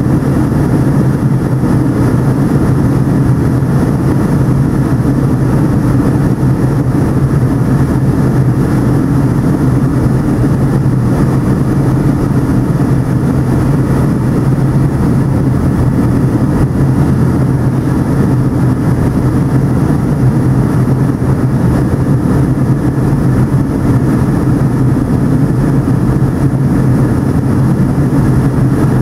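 Steady cabin noise of a Boeing 757-200 in flight, its Pratt & Whitney PW2037 turbofans and the airflow over the fuselage giving a constant loud drone with a strong low hum and a rushing hiss.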